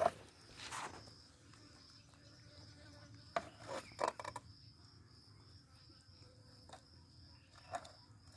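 Insect trilling steadily in a high, evenly pulsed tone, with a few short clicks and crunches from tortoises biting into shredded raw squash, a cluster about three to four seconds in and one near the end.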